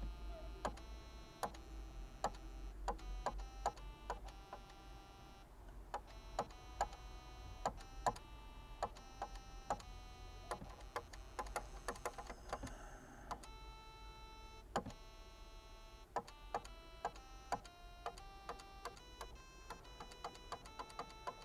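LeapFrog LeapStart toy's small speaker playing a string of short electronic musical notes that change pitch from one to the next, each set off by the click of the stylus tapping the book page.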